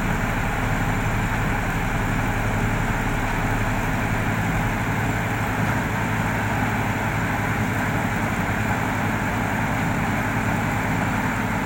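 Heavy engine running steadily at a constant speed, a low even hum with no change in pitch.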